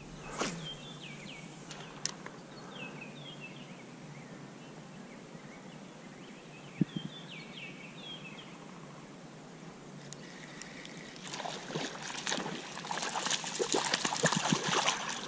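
A hooked fish splashing and thrashing at the water's surface while it is reeled in, starting about two-thirds of the way through and getting louder toward the end. Before that, a steady river hiss with several bursts of short falling bird chirps.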